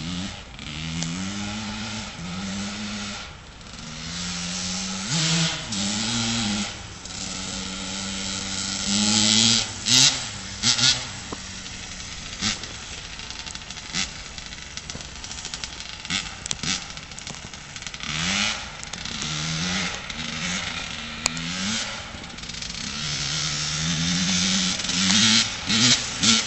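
1984 Honda CR125's 125cc two-stroke single-cylinder engine running and being revved repeatedly, pitch climbing and dropping with each blip of the throttle, with a few sharp cracks in the middle; it is freshly rebuilt and running on its first start after the rebuild.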